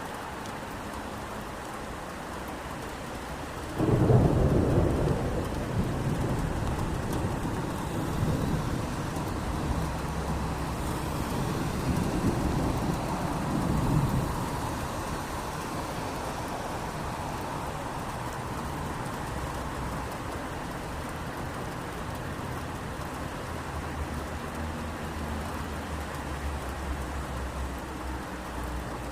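Steady rain with a sudden thunderclap about four seconds in. The thunder rumbles on in a few swells for roughly ten seconds, then fades back under the rain.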